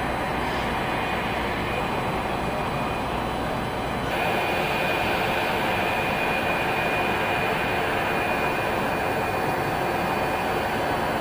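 Steady turbine whine and rush from a Sukhoi Superjet 100 jet airliner standing at the stand, with a high steady tone over it; about four seconds in the sound steps up a little louder and the tone becomes clearer.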